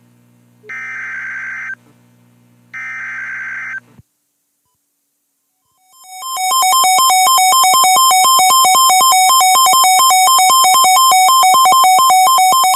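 Emergency Alert System SAME header: three buzzing data bursts about a second long, with a low hum under them. After a short silence comes the loud alert tone: a fast-pulsing electronic two-tone signal with a steady high whine, announcing a new warning.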